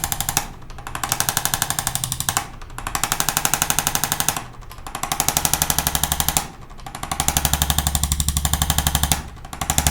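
ArthroStim electric chiropractic adjusting instrument tapping rapidly and evenly, like a tiny jackhammer, in bursts of about two seconds with short breaks between them as it is worked along the spine.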